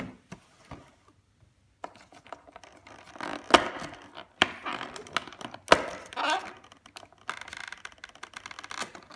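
Cardboard advent calendar door and a foil wrapper crackling and rustling as fingers work a small gift out through the opening, with irregular sharp clicks and snaps, the loudest about three and a half and five and a half seconds in.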